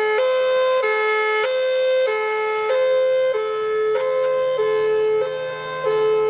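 Thunderbolt outdoor warning siren sounding a hi-lo signal, alternating between a higher and a lower pitch about every 0.6 seconds.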